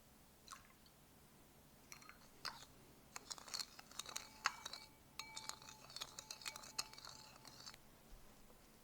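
Glass or ceramic kitchenware clinking: a run of light taps and clinks, a few of them leaving a short ringing tone, before it stops near the end.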